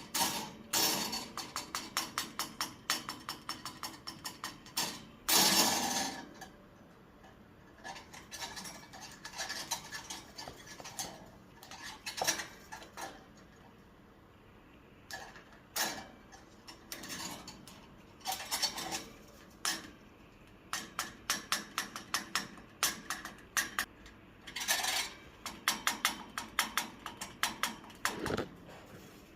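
A caique parrot shaking and rattling a piece of metal in its cage: rapid clinking in bursts of a second or two, broken by short pauses.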